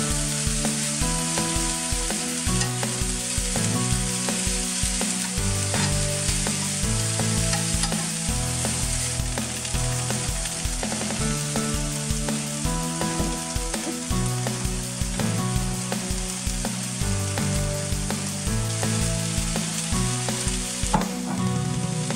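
Noodles and chicken frying in a non-stick pan on a gas hob: a continuous sizzle while they are stirred, under background music with a steady beat.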